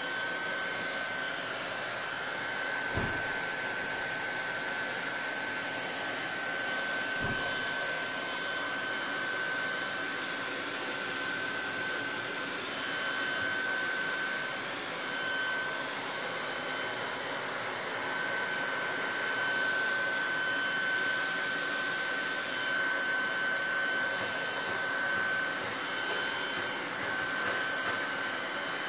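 Handheld hair dryer blowing steadily: a rush of air with a thin, steady high whine over it. Two faint low thumps come about three and seven seconds in.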